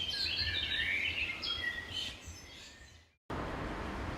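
Birds chirping and singing in a quick tangle of short high calls, fading out about three seconds in. After a sudden cut, a steady noisy city background with a low hum takes over, likely traffic.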